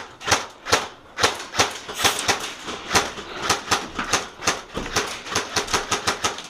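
Airsoft guns firing a quick, irregular string of sharp shots, about two to four a second.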